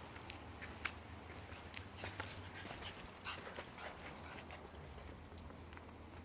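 A dog sniffing at the ground, faint, with a scatter of short clicks and rustles.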